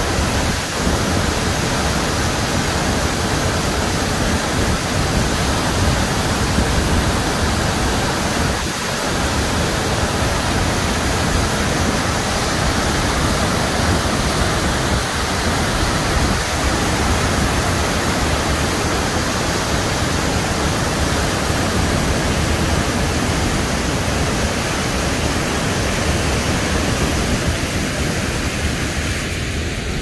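Waterfall roar: the Kaveri river's cascades pouring over rock at Hogenakkal Falls, a steady, even rush of water that eases slightly near the end.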